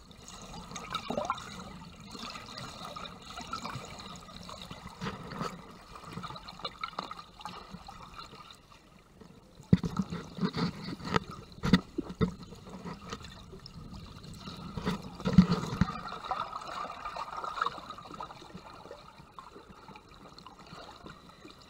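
Water sloshing and gurgling against a GoPro held just under the surface during a snorkel, with irregular knocks and splashes, the loudest about ten, twelve and fifteen seconds in.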